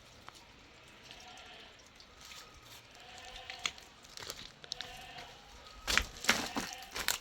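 Sheep bleating faintly several times. A few loud, sharp cracks come near the end.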